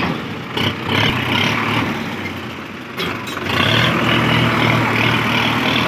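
Sonalika DI 750 III tractor's diesel engine running as the hydraulic tipping trailer is lowered after dumping soil. It drops back about a second in and picks up again about three and a half seconds in.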